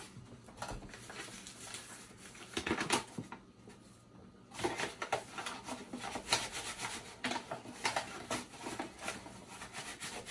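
Paper flour bag crinkling and rustling as it is handled and opened, then a measuring cup scooping and scraping through the flour inside the bag: a run of short, scratchy crunches.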